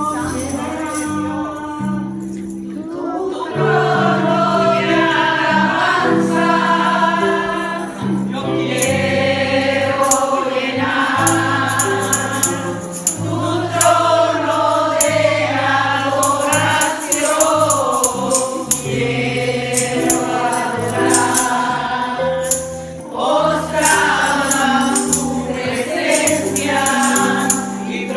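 A group of voices singing a gospel praise song with live band accompaniment: a steady bass line underneath and a tambourine shaking in time.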